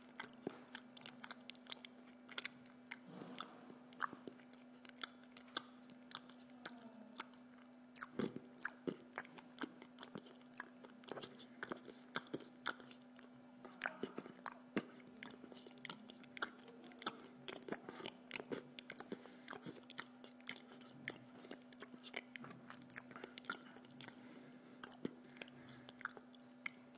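A person chewing and biting food close to the microphone: a dense run of short sharp mouth clicks, several a second, over a steady low hum.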